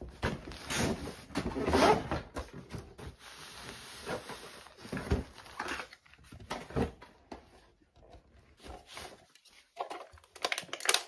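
Cardboard toy box and its packaging being handled: irregular rustling and scraping as a plastic toy house is slid out of the box, with scattered knocks and a cluster of sharp clicks near the end.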